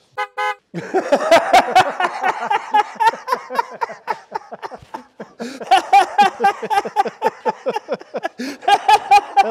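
Men laughing hard in quick, rhythmic bursts of about five a second, with a short break in the middle.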